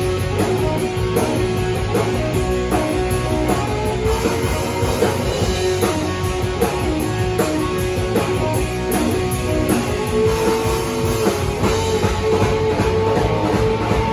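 Live rock band playing loud: electric guitars holding sustained lines over drums with steady cymbal strikes.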